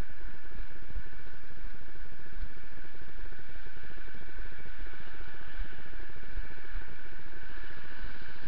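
Footfalls in snow and rubbing on a body-worn camera's microphone while walking briskly, with low thumps about twice a second over a steady hiss.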